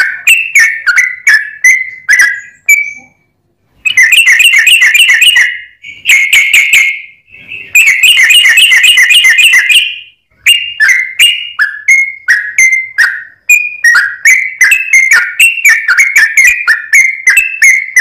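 Yellow-vented bulbul (trucuk) singing loudly: a run of repeated whistled notes, a few a second, broken twice in the middle by fast chattering phrases and short pauses.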